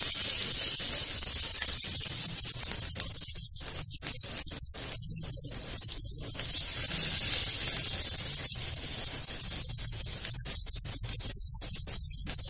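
Hot oil sizzling in a frying pan as handfuls of shredded cabbage and rice-paste batter are dropped in to shallow-fry. The hiss gets louder about six and a half seconds in, as another portion of batter goes into the oil.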